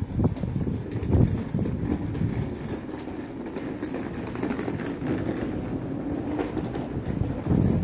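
Low rumbling noise of wind buffeting a phone microphone carried at walking pace, with a few heavier thuds in the first second or so, steadier through the middle.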